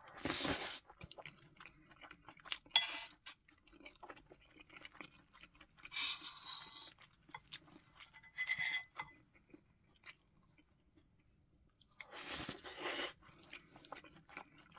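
Eating omelet rice with a metal spoon from a ceramic plate: the spoon scraping the plate and chewing, in about five short bursts. One scrape carries a brief squeak about eight seconds in.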